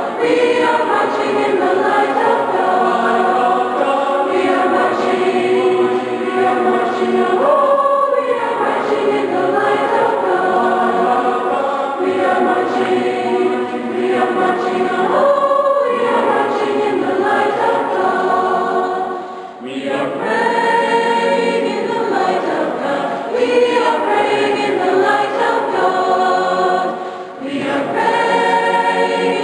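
Youth choir of mixed voices singing a sacred piece in parts, with brief breaks between phrases about twenty seconds in and again near the end.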